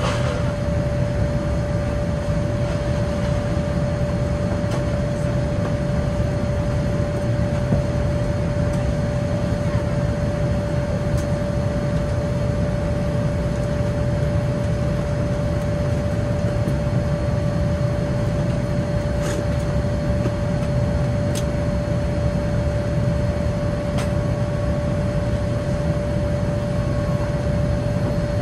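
Steady cabin noise of a Boeing 787-9 Dreamliner at altitude: an even low rush of airflow and engine noise with a constant hum tone running through it. A few faint ticks are scattered over it.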